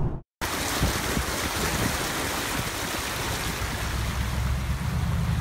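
Steady rushing noise of wind on the microphone, with a low rumble underneath.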